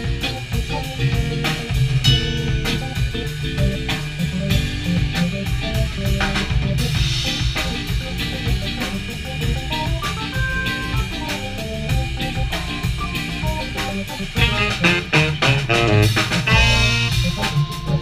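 Jazz-funk band playing live: a drum-kit groove with electric guitar, electric keyboard and upright bass.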